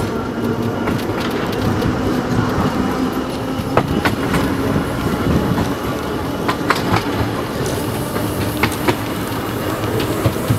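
Narrow-gauge electric tram running along the line: a steady rumble and rattle of the car, with a few pairs of sharp clicks from the wheels on the track.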